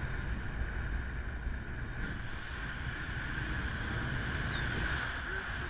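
Airflow rushing over an action camera's microphone in paraglider flight: a steady low buffeting rumble with a constant higher hiss on top.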